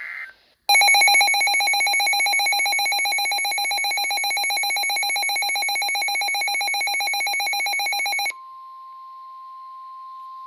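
Weather alert radio's alarm going off: a loud electronic tone pulsing rapidly for about seven and a half seconds, signalling a new severe thunderstorm warning. It cuts off suddenly, and the steady single-pitched NOAA Weather Radio warning alarm tone follows.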